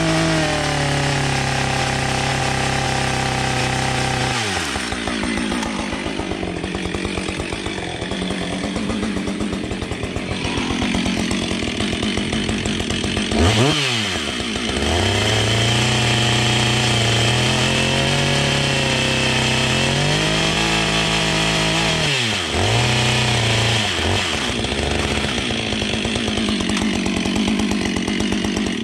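Gas chainsaw running at full throttle, cutting through the timbers of a wooden boardwalk. The engine speed drops and climbs back three times, about 4, 14 and 22 seconds in, and the sound cuts off abruptly right at the end.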